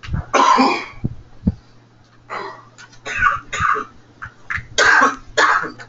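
Several short bursts of coughing and throat clearing from a person in a small room, the loudest about half a second in and near the end, over a steady low hum.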